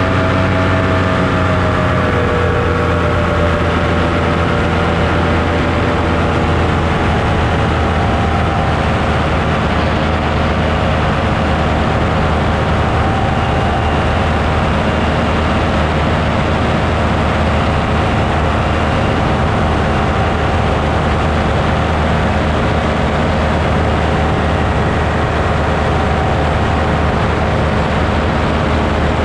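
Motor and propeller of the aircraft carrying the camera running steadily at cruise. Its pitch eases down over the first few seconds, then holds, over a strong low hum.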